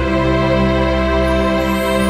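Background instrumental music with long held chords.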